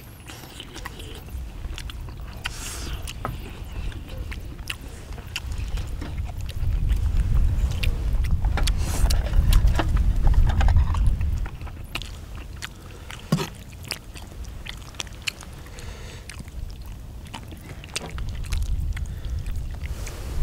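People chewing and biting into spicy braised chicken and beef intestines, with short clicks of chopsticks against bowls. A low rumble swells in the middle and returns near the end.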